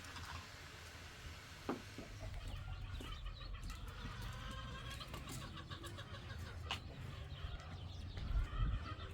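Bird calls, many short wavering chirps from a few seconds in, over a steady low rumble.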